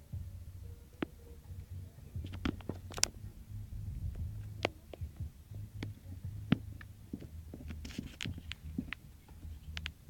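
Low, uneven rumble on the microphone, with scattered sharp clicks throughout; the loudest clicks come about three seconds in and again about six and a half seconds in.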